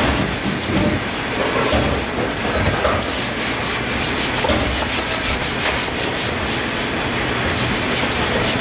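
Stiff hand brush scrubbing a wet wooden tofu mould back and forth under running hose water, with the strokes coming quick and rhythmic from about three seconds in.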